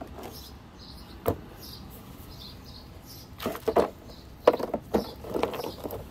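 Rocks clunking against each other and the plastic tub, with water sloshing and splashing as a large rock is lifted and turned in muddy water: one sharp knock about a second in, then a run of clunks and splashes in the second half. Faint bird chirps in the background.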